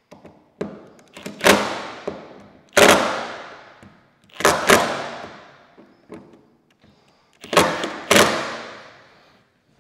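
A series of about eight sharp knocks, the loudest coming in pairs, each ringing out and dying away over about a second.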